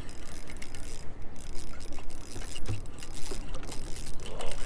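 Wind buffeting the microphone on an open boat, a rushing, uneven noise with a low rumble under it.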